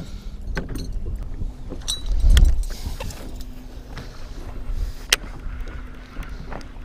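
Wind and choppy water around a small fishing boat, with scattered light clicks and knocks. There is a low thump about two seconds in, and a faint steady hum from about three seconds on.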